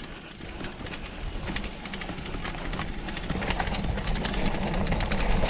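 Mountain bike rolling along a dirt trail: tyres rumbling and the bike rattling and clicking over the ground, getting steadily louder as it goes.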